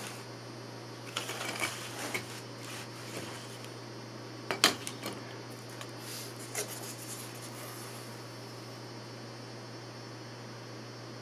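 Handling noise: a few light knocks and clicks, the sharpest about four and a half seconds in, over a steady low hum.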